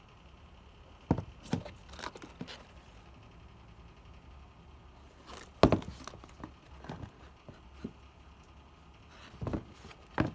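Handling noise: scattered knocks and soft rustles as knit sneakers and a cardboard shoebox are moved by hand, the loudest knock a little past the middle.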